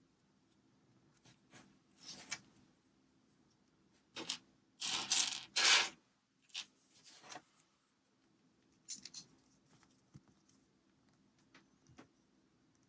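Small hard plastic LEGO pieces being handled, with scattered clicks and short rattles. The loudest stretch comes around the middle: a few seconds of clattering, like loose bricks being stirred or dropped among other pieces.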